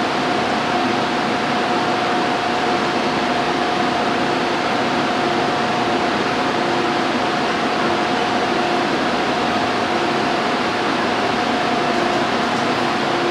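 Steady, even rush of subway noise with a constant hum and a fainter lower tone that keeps breaking off, from the Hong Kong MTR.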